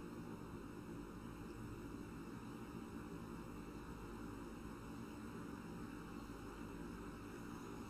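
Faint steady electrical hum with a light hiss: room tone picked up by the microphone.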